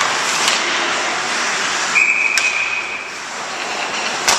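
Ice hockey play: skates scraping and hissing on the ice with sharp clacks of sticks, puck and boards, the loudest near the end. A short, steady, high whistle blast sounds about two seconds in.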